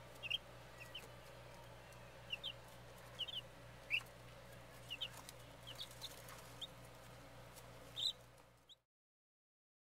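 Baby chicks peeping: short, high chirps scattered every half second or so, over a low steady hum. The sound stops abruptly near the end.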